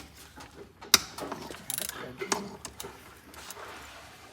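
Hand ratchet wrench clicking while transmission case bolts are being cracked loose, with a sharp metal clank about a second in.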